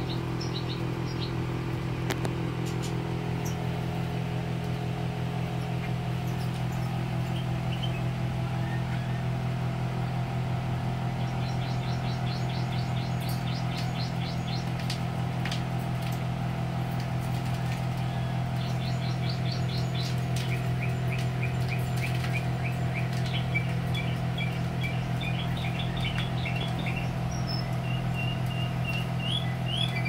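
Caged European goldfinches and canaries chirping in quick runs of short high notes, more often in the second half, over a steady low hum.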